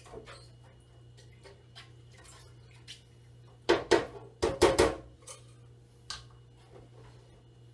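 Kitchen containers and utensils being handled on a countertop: scattered light clicks, then two loud clattering knocks about four and four and a half seconds in.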